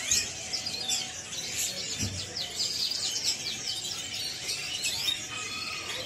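Many caged domestic canaries chirping and trilling at once: a busy chatter of quick, high notes that overlap throughout. A brief low bump comes about two seconds in.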